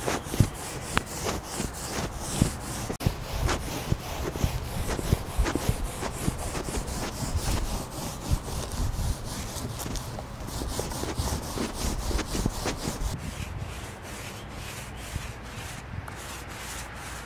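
Small paint roller rolling wet gloss paint over a fiberglass canoe hull, a rubbing sound repeated with each back-and-forth stroke.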